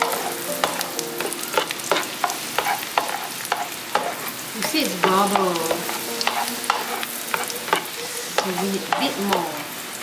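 Chopped garlic sizzling in melted butter in a frying pan, being stirred with a slotted spatula that clicks and scrapes against the pan many times. The garlic is being fried until it turns yellowish.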